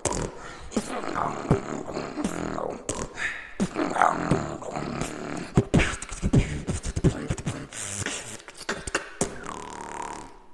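Human beatboxing: a fast run of mouth-made percussive hits and clicks mixed with short pitch sweeps, ending in a held tone that dips slightly in pitch near the end.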